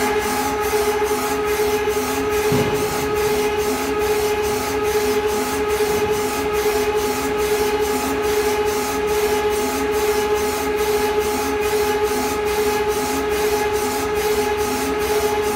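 Schnell Hone PLC-controlled cylinder honing machine running while honing a two-wheeler single cylinder. A steady motor whine sits under a fast, regular pulse of about three beats a second.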